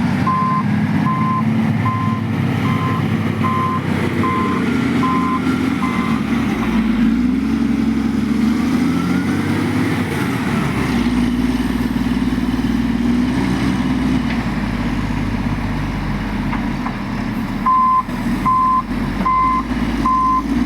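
Construction vehicle's reversing alarm beeping at a steady pace, a little faster than once a second, over a continuously running engine. The beeping stops after about six seconds, leaving the engine alone, and starts again near the end.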